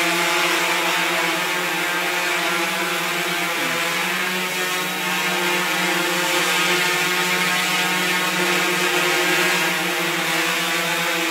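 Quadcopter hovering and moving slowly, its four propellers and electric motors giving a steady hum at one even pitch.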